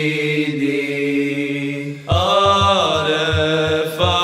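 Bosnian ilahija sung by voices alone without instruments: a solo voice holds the last sung word of a line, then about two seconds in, layered backing voices come in with a wavering melody over a pulsing low beat.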